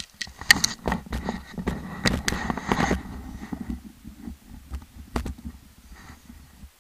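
Handling noise on an action camera as it is moved and turned: a dense run of clicks and knocks over a low rumble for about three seconds, then sparser knocks, with the rumble cutting off suddenly near the end.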